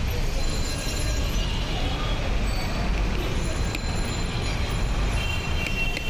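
Busy street traffic: a steady low rumble of passing vehicles, with a horn sounding near the end.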